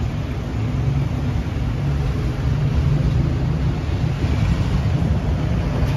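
Road traffic: cars passing close by on a city street, a steady low rumble of engines and tyres.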